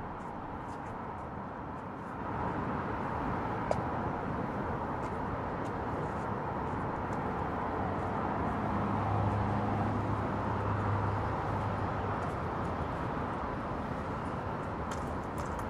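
Steady outdoor background rumble of distant traffic, with a low engine hum from a passing vehicle swelling about halfway through and fading out a few seconds later.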